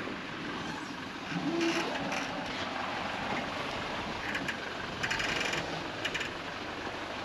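Four-wheel-drive vehicle driving slowly along a sandy off-road track: steady engine and tyre noise, with short creaking or squeaking sounds about 1.5, 5 and 6 seconds in.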